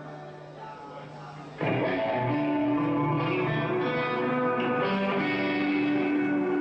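Electric guitar being played at a band's sound check: softer held notes, then a loud chord struck about a second and a half in and left ringing while the notes shift.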